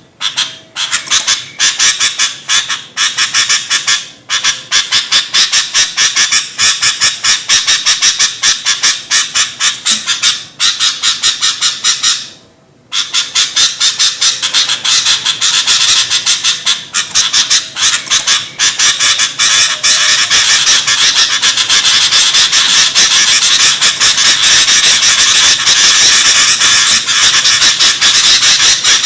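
Sooty-headed bulbuls (kutilang) calling noisily: a dense run of rapid, harsh chattering notes. The notes break off briefly about halfway through, then run on almost without pause.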